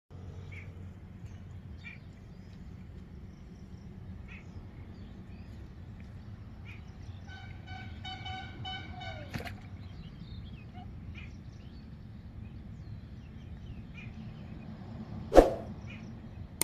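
Outdoor ambience with a steady low rumble, scattered faint bird chirps and a drawn-out pitched call lasting about two seconds in the middle. Near the end comes a single loud sharp click from a subscribe-button animation sound effect.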